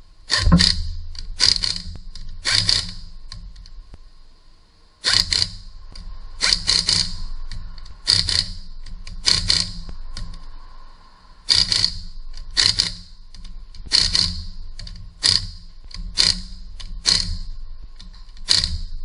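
Impact wrench hammering on the wheel's lug nuts in a series of short bursts, about seventeen in all, each under half a second, with a pause of about two seconds after the first three. The nuts are being run down and tightened as the wheel goes back on.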